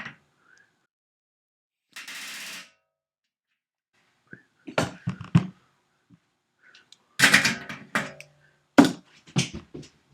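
Pneumatic rivet gun fires one short burst of under a second, setting an aluminium rivet. It is followed by a run of sharp metallic knocks and clatter from tools being handled, loudest about two-thirds of the way in.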